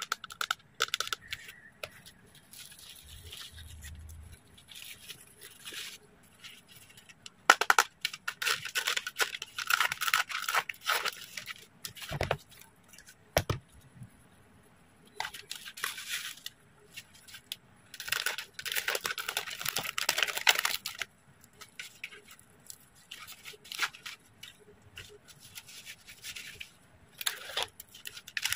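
A set of protective pads being handled: mesh fabric, straps and hard plastic caps. There are several long rasping, tearing sounds of a few seconds each, and two dull knocks near the middle.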